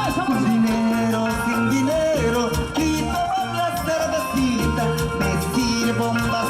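Live band playing upbeat Latin American dance music, with a repeating bass line, sustained melody lines and a steady percussion beat.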